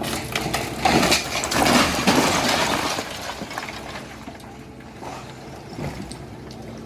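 Building debris crashing and breaking as a Hitachi excavator tears down a house, loudest from about a second in for two seconds, then smaller knocks of falling rubble over the excavator's steady engine.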